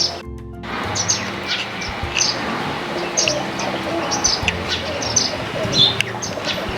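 Small birds chirping, many short high chirps coming every fraction of a second over steady background noise.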